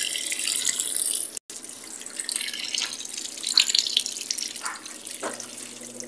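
Whirlpool top-load washing machine filling: water pours from the inlet and splashes onto the dry clothes in the tub at the start of the wash cycle. The sound cuts out for an instant about one and a half seconds in.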